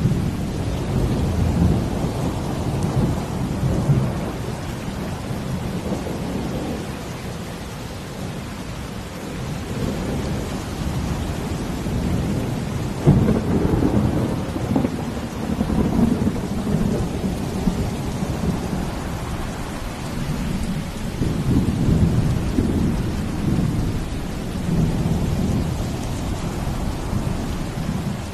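Steady rain falling over a deep rumble of ocean waves that swells and ebbs every few seconds.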